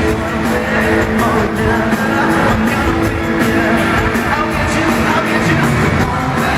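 Live pop-rock band performing with lead singing, a steady drum beat and sustained instruments, heard through the arena's sound system from the audience seats.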